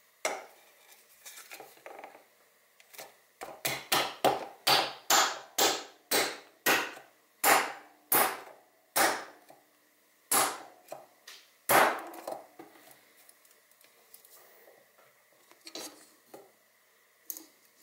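Aluminium beer can with a tight-fitting 3D-printed PLA cylinder inside, knocked down onto a wooden tabletop about a dozen times to force the cylinder home. The sharp knocks each ring briefly and come further apart toward the end, with lighter taps and handling noise before and after.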